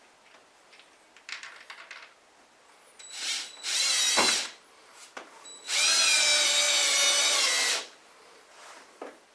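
Power drill driving screws to fasten a heater's wall brackets: a brief run, then a louder burst that winds down in pitch as the trigger is released, then a steady whining run of about two seconds.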